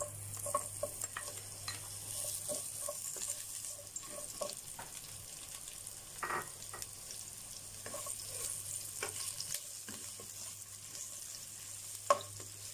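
Sliced onion rings sizzling in about a tablespoon of oil in a frying pan, a steady high hiss with scattered light taps against the pan. Two louder taps stand out, one about six seconds in and one near the end.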